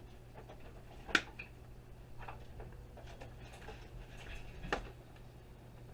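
Two sharp clicks, about a second in and again near the end, with fainter handling noises between: wire cutters snipping the heater's internal wires loose.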